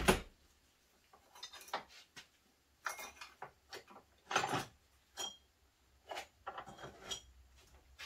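Metal tools and parts clinking and clattering as a steering knuckle and hub assembly is handled on a workbench: a few separate knocks, then a quick run of small clinks near the end.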